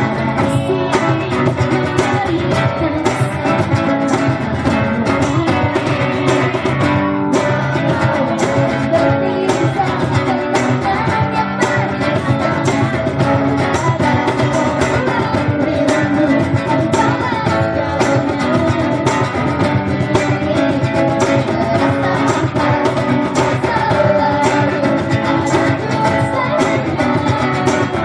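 A group of women singing a pop song over strummed acoustic guitar, with the strumming keeping a steady, even rhythm.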